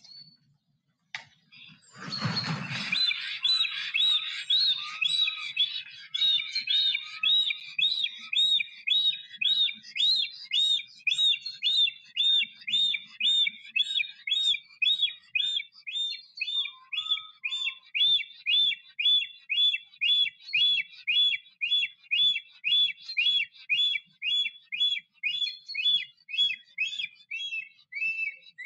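Black stork landing on the nest with a brief rush of wings about two seconds in, then singing: a long run of repeated whistling notes, about two a second, given in the male's display with white undertail feathers fanned.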